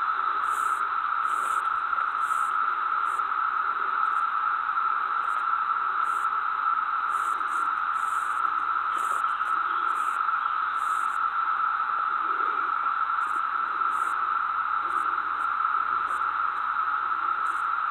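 Steady static-like hiss, even and unbroken, with fainter short high-pitched chirps coming and going irregularly.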